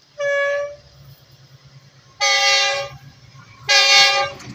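Diesel locomotive horn blowing three blasts: a short one near the start, then two longer, louder ones about a second and a half apart.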